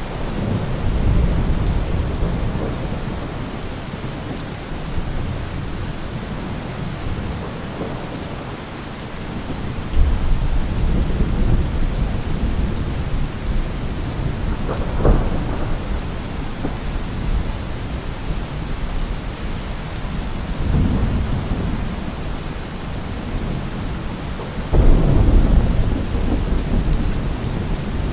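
Thunderstorm: steady heavy rain with several deep rolls of thunder. Two of them break in suddenly, about a third of the way in and again near the end, where the loudest one comes. A short sharp crack is heard about halfway through.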